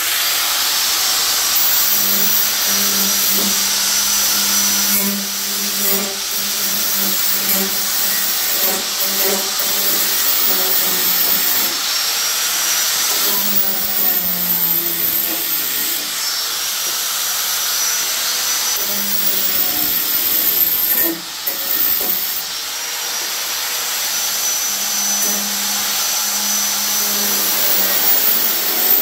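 Corded angle grinder running and grinding down the cut sheet-steel edges of louver openings in a car hood, with a steady motor whine and a hiss of metal being ground. It eases off briefly about two-thirds of the way through.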